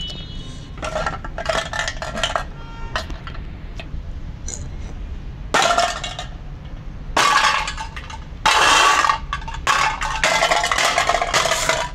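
Empty aerosol spray paint can struck again and again with a hammer on concrete: irregular clusters of metallic clanks and crunching from the dented can, with brief ringing of the thin metal.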